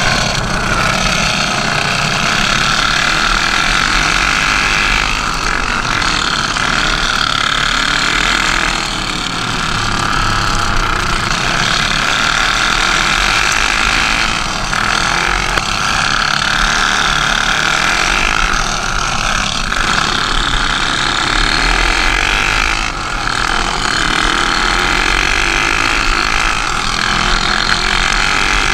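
Go-kart engines running hard during a race, heard from a camera mounted on the kart, a steady loud drone that dips briefly three times.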